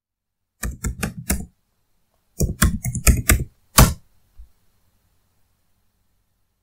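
Computer keyboard typing a short command in two quick runs of keystrokes, ending with one louder keystroke, the Enter key, about four seconds in.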